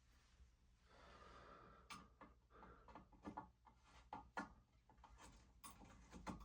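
Near silence broken by faint scattered clicks and small scrapes of a screwdriver working the small brass-coloured screws on a ceiling fan's blades.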